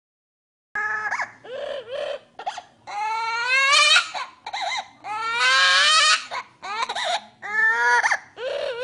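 An Amazon parrot mimicking a person crying: a string of loud, sobbing wails, several of them rising in pitch, starting under a second in.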